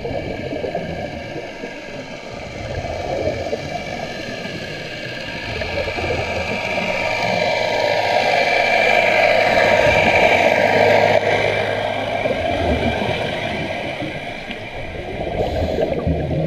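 Motorboat engine and propeller heard underwater as the boat passes over the divers: a steady whine with several tones that grows louder to a peak about ten seconds in, then eases.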